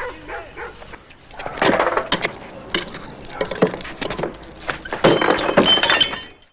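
A man shouting angrily to have a door opened, with loud bangs and crashes. It cuts off suddenly near the end.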